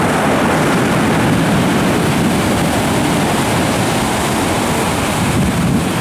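Storm surf: large waves breaking and foam washing over a pebble beach, a loud, steady rush of water. Wind buffets the microphone, adding a ragged low rumble.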